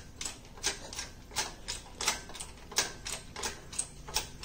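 Steady mechanical clicking, about three sharp clicks a second, alternating louder and softer.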